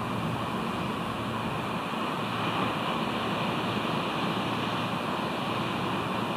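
A steady, even rush of surf and wind at a sea-stack nest, with no calls or other distinct sounds.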